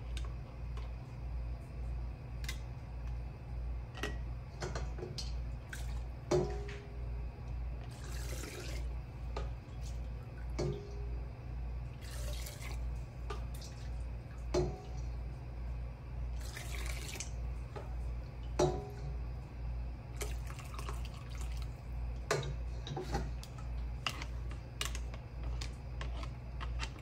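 Broth ladled through a plastic canning funnel into glass mason jars: several pours of liquid, each a second or two long, with the ladle clinking against the stockpot and jar rims between them. A low hum pulses steadily underneath.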